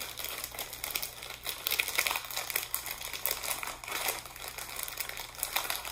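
Plastic snack bag crinkling as it is gripped, tugged and twisted by hand, without tearing open.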